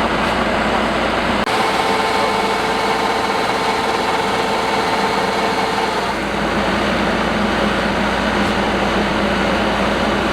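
Combine harvester running steadily with a dense mechanical noise. A steady whine comes in abruptly about a second and a half in and stops about six seconds in.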